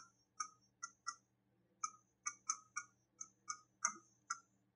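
A pen tip clicking and tapping against the surface of an interactive display board during handwriting: about a dozen short, sharp, irregular clicks, two to three a second.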